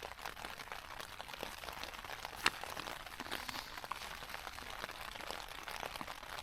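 Steady rain pattering on a tent fly sheet, heard from inside the tent, with one sharp click about two and a half seconds in.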